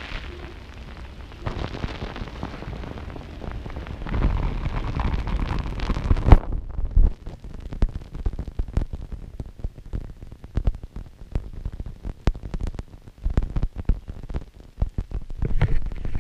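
Heavy rain close on the microphone: a dense hiss with low rumbling, loudest around four to six seconds in, that cuts off abruptly about six and a half seconds in. After that come scattered sharp taps of single drops.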